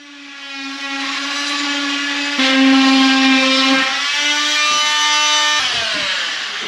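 RotoZip rotary tool running with a steady high whine while cutting back drywall, louder for about a second and a half midway. About five and a half seconds in it is switched off and spins down, its pitch falling.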